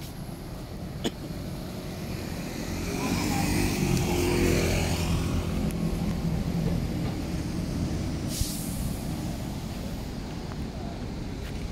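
Road traffic passing a sidewalk, a steady low rumble that swells as a large engine goes by about three to six seconds in. A short high hiss follows a little after eight seconds.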